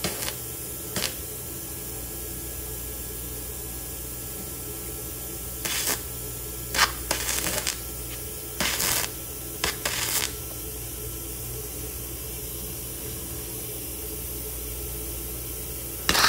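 Flux-core wire welder striking short arcs on 16-gauge sheet steel: several bursts of sizzling arc crackle, each a second or less, one about a second in, a run of them in the middle, and another at the end, over a steady low hum. The welder is set at 100 amps, higher than this thin sheet metal needs.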